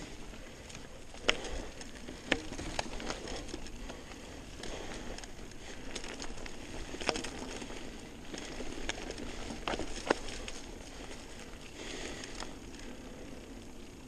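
Mountain bike rolling downhill on a dry, stony dirt singletrack: tyres crunching over gravel and dry leaves, with scattered sharp clicks and knocks.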